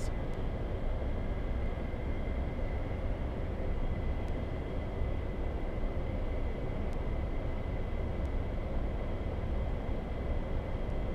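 Steady outdoor background rumble, strongest in the low end, with a faint steady high whine over it.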